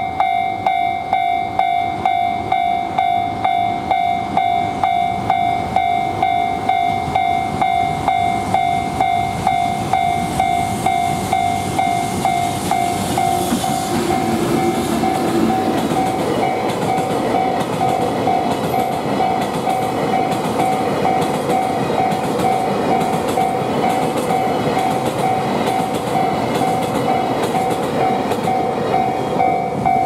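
Level crossing warning bell ringing in a steady, even rhythm. Over it, a freight train of tank wagons hauled by a JR Freight EH200 electric locomotive rolls past, and its wheels rumble and clack on the rails, building from about a third of the way in.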